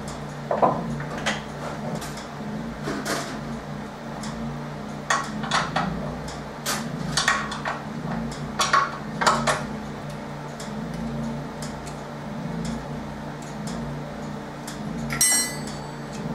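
Hand tools and steel parts clinking and knocking on a skid-steer quick-hitch plate as a new hitch cylinder is fitted: scattered irregular metal clicks and clanks, with a single ringing metallic strike near the end, over a steady low hum.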